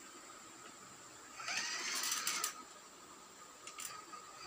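Battery-powered ride-on toy motorcycle: its small electric motor whirs up and back down once, for about a second, starting about a second and a half in.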